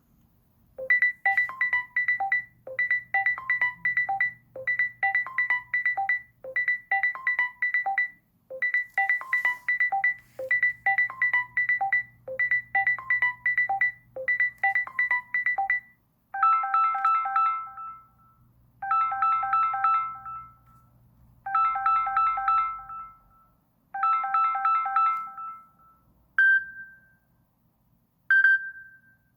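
Samsung Galaxy S21 Ultra stock ringtone playing: a short melodic phrase of quick, bright notes repeats about every two seconds. About halfway through it changes to a lower, held phrase that repeats four times, and it ends on two single notes.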